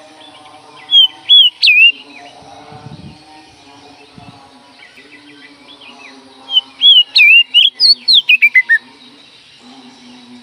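Oriental magpie-robin (kacer) singing loud whistled notes in two bursts: a short phrase of three notes about a second in, then a longer rapid run of about ten notes around seven seconds in that ends with notes falling in pitch.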